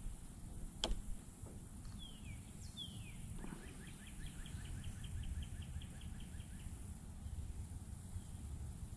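A bird singing two downward-slurred whistled notes, then a fast, even trill of about six short notes a second for about three seconds, over a low steady outdoor rumble. A single sharp click about a second in.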